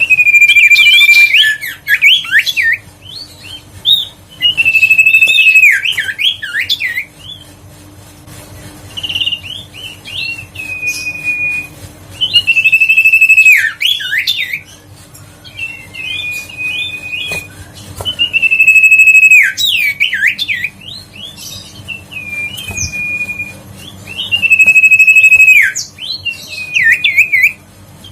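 Common iora singing: a loud, repeated phrase of one long steady whistled note followed by a quick run of rising and falling slurred notes, coming back about every six seconds.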